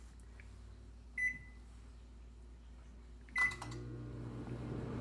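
Samsung over-the-range microwave oven: a short keypad beep about a second in, another a little past three seconds as it is started, then the oven begins running with a steady low hum.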